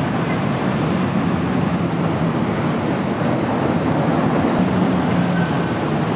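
Street traffic at a busy city intersection: a steady wash of road noise with the low hum of bus and car engines.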